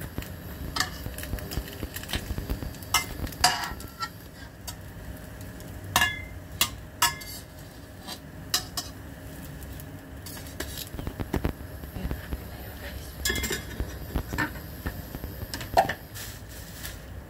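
Metal spatula and utensils clinking and knocking against a stainless steel frying pan while a French toast sandwich is turned. The clinks are short and irregular, some with a brief ring.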